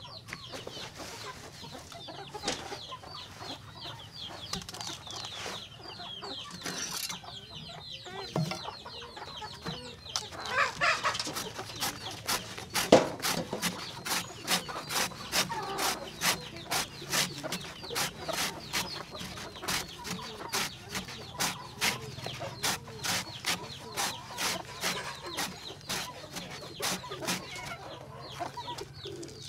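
Chickens clucking, then, from about a third of the way in, a large knife chopping a banana stem into thin slices against a wooden block, about two chops a second, while the clucking goes on underneath.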